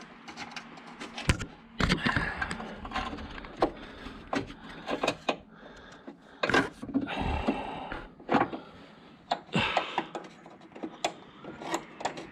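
Irregular clicks, knocks and scrapes of metal parts being handled and fitted by hand, with rustling between them, as the front scuttle vent is worked onto its studs.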